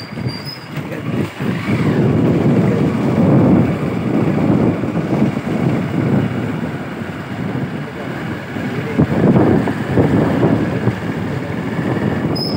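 Wind buffeting the microphone of a moving motorbike, a loud uneven rumble over the bike's running engine.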